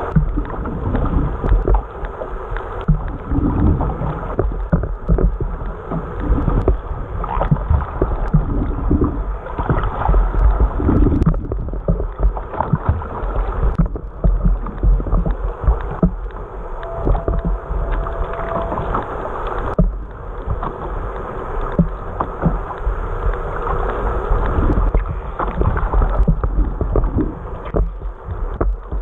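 Water sound heard underwater through a waterproof camera housing: a muffled, uneven rush and gurgle of water with a heavy low rumble and irregular knocks.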